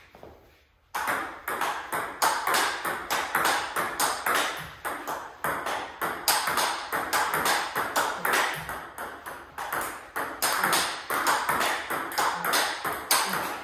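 Table tennis forehand rally: the ball clicking off paddles with Hurricane 3 Neo rubber and bouncing on the table in a steady back-and-forth run of sharp clicks, a few a second, starting about a second in.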